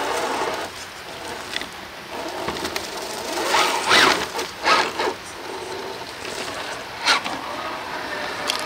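Traxxas TRX-4 1/10-scale RC crawler climbing in high gear, its electric drivetrain whining while its stock tires spin and crunch through snow and dry leaves. Sharper bursts of crunching come about four, five and seven seconds in.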